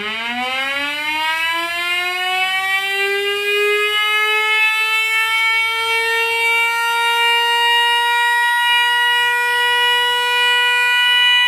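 Federal Signal Thunderbolt 1000 civil defense siren, run without its blower, winding up to full speed. Its wail climbs steeply in pitch, then levels off into a steady, loud tone.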